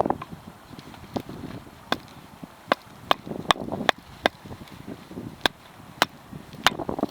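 Hultafors Scout hatchet chopping firewood into kindling: about a dozen sharp knocks of the blade into wood, irregularly spaced at roughly two a second.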